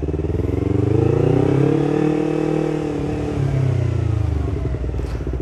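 Yamaha YZF-R25's parallel-twin engine under way: the revs climb about half a second in, hold, then ease back down around four seconds in.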